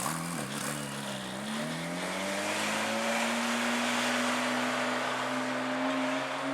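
Engine and exhaust of a Gemballa Avalanche, a tuned Porsche 997 with a flat-six. The revs dip and recover a couple of times in the first second, then the pitch climbs slowly and steadily as the car accelerates.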